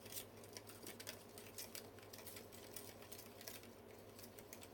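Near silence: room tone with a steady low hum and faint, irregular light clicks and ticks.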